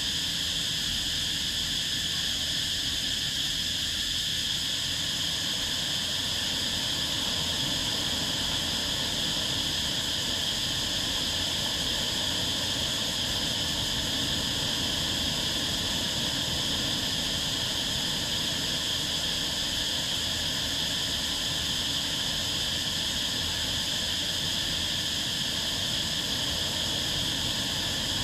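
Steady high-pitched chorus of insects at dusk, with the low wash of small waves breaking on the beach beneath it.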